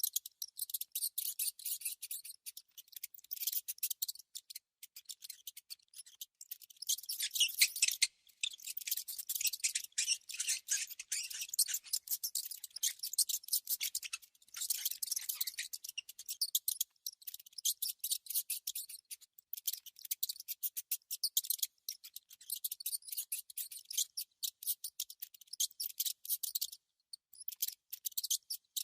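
A mouse making dense, rapid, irregular high-pitched clicks and scratchy scrapes, with brief pauses about eight seconds in and near the end.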